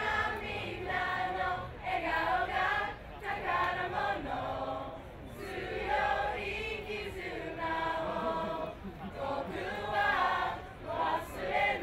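Several voices singing together like a choir, with held notes that glide and change every second or so.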